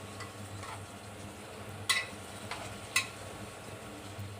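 Onion, tomato and spice masala sizzling in mustard oil in a pan as it is stir-fried, with a spatula knocking against the pan twice, about two and three seconds in.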